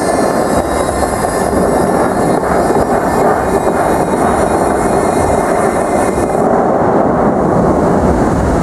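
Steady, loud rush of the Bellagio fountain's water jets, an even roar without a tune, its hiss thinning about two thirds of the way through.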